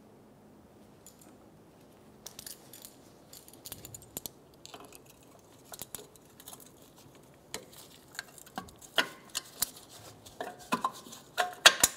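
Small metal clicks and clinks as pliers work the steel hold-down clip and pin on a parking brake shoe against its backing plate. Starting about two seconds in, there are scattered sharp ticks, some with a short metallic ring. They come louder and closer together toward the end, where the sharpest clicks fall.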